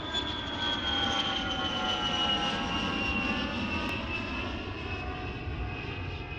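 Jet airliner passing overhead: engine whine with several tones sliding slowly down in pitch over a low rumble, building over the first second or two and then slowly easing off.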